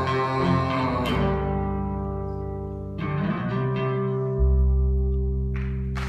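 Electric guitar and cello playing the closing chords of the song without voice. Repeated notes give way to held chords ringing out, and a deep low note comes in about four and a half seconds in.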